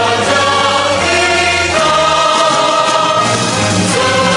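Choral music: a choir singing long held chords with accompaniment, the chord changing twice.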